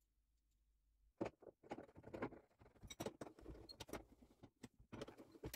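Faint metallic clinking and rattling of a threaded rod and wrench knocking against a car's underbody as the rod is fed up through a mounting hole. It starts about a second in as irregular clicks and knocks.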